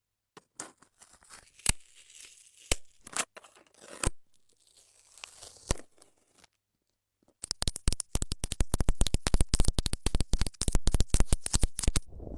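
Close-up ASMR trigger sounds: scattered crinkles and sharp clicks, then from about seven seconds in a fast, dense run of crackling taps.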